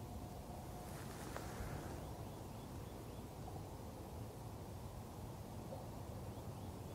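Outdoor nature ambience: a steady low rush, with a short run of faint, high bird chirps about two and a half seconds in.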